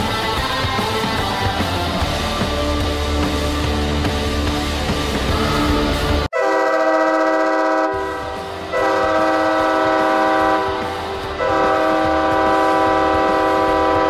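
Heavy rock goal song with pounding bass and guitar, cut off abruptly about six seconds in. Then the San Diego Gulls' 2019-20 arena goal horn, a multi-tone chord horn, sounds three long blasts of about two seconds each, with music starting up underneath from the second blast.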